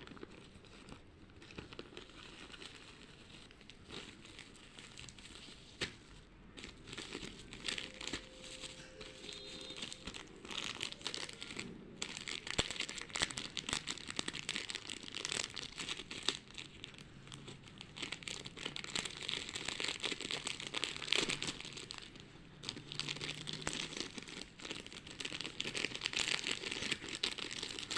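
Packaging being handled and unwrapped by hand: irregular crinkling and rustling with some tearing. It gets busier and louder about halfway through.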